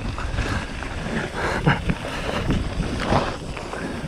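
Wind buffeting the microphone of a mountain biker on the move, a steady low rumble, with a few short knocks and rattles from the bike going over rough ground. The loudest knocks come a little under two seconds in and just after three seconds.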